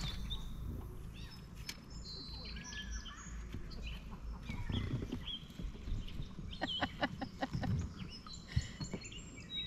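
Birds chirping and singing, with many short whistled notes, over a steady low rumble. A quick run of about eight sharp clicks comes around seven seconds in.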